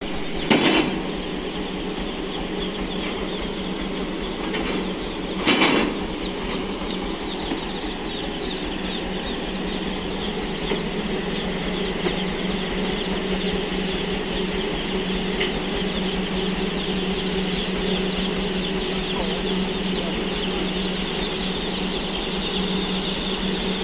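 Many day-old broiler chicks peeping continuously in stacked chick crates, over a steady low engine hum. Two loud knocks stand out, about half a second in and again about five and a half seconds in.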